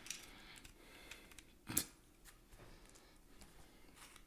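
Faint rustling and handling noises of someone rummaging around a desk, with one sharper knock just under two seconds in.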